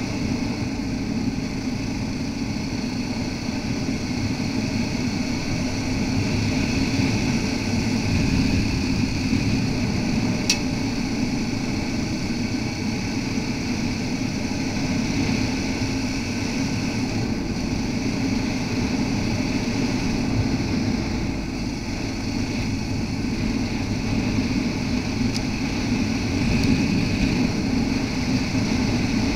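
Yamaha XT660R's single-cylinder four-stroke engine running steadily while riding along a gravel road, with one sharp click about ten seconds in.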